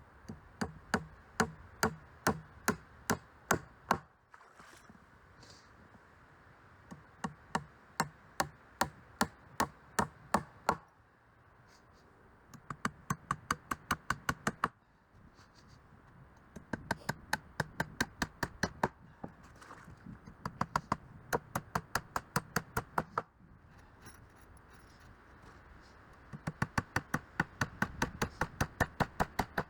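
Hammer blows on timber, in six runs of quick, evenly spaced strikes, about three to six a second, with pauses of one to two seconds between the runs.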